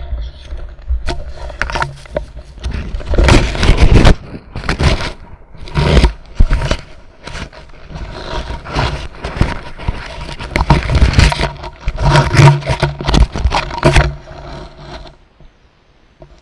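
Parachute fabric and harness rustling and scraping right against the camera's microphone in loud, irregular bursts, settling down shortly before the end.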